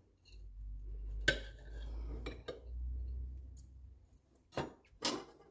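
Serrated bread knife sawing through a soft pineapple cake on a ceramic platter: a low, even rasp with a few light clinks of the blade against the plate. Near the end come two sharp knocks, the loudest sounds here, as the knife is put down.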